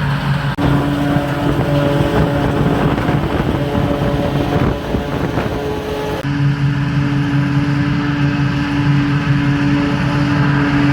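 Tractor engines running steadily at work in the field, the sound changing abruptly twice where the shots switch.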